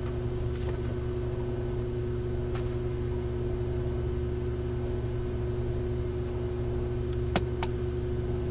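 A car engine idling, a steady low hum with a few short clicks near the end.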